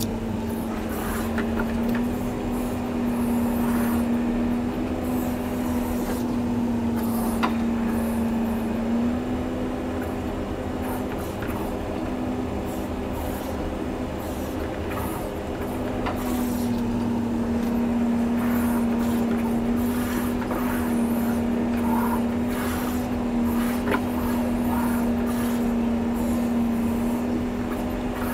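John Deere 670G motor grader's diesel engine running steadily under load while grading, a constant drone with light rattles over it. The engine's pitch sags a little about a third of the way in and picks back up just past the middle.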